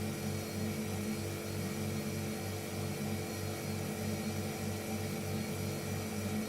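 Refrigerator running, a steady hum with a low throb pulsing about three times a second.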